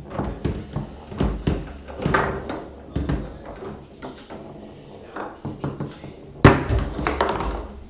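Foosball play: the ball and the plastic men knocking as the players pass and shoot, with the rods clacking against the table in a run of sharp knocks and a loud bang about six and a half seconds in.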